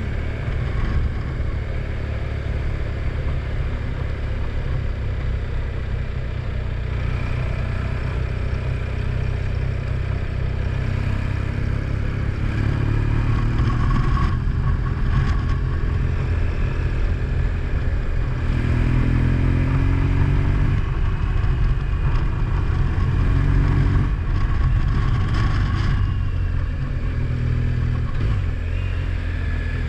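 A motor vehicle's engine running under a steady low rumble, its pitch rising several times as it speeds up.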